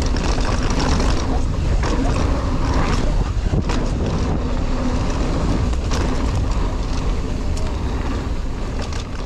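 Wind buffeting the microphone and the tyres of a 2021 Ibis Ripmo 29er mountain bike rolling over a dirt trail, with frequent clicks and rattles from the bike. It gets quieter near the end.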